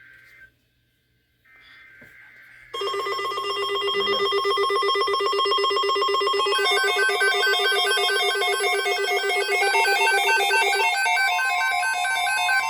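Emergency Alert System tones: two short, raspy digital data bursts (the SAME header), then a loud electronic alert signal that trills rapidly in several tones at once. The trill shifts to a stepping, higher pattern a few seconds in.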